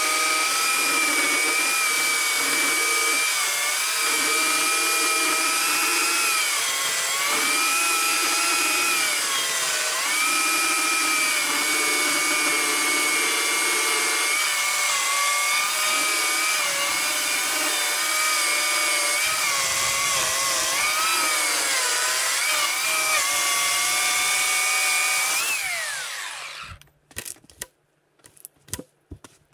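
Oregon CS1500 corded electric chainsaw cutting through a log: a steady high motor whine that dips in pitch several times as the chain bogs under load. Near the end the motor is released and winds down, followed by a few sharp knocks.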